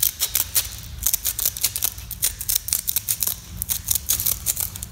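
Scissors cutting through sandpaper, a quick, irregular run of crisp snips, several a second.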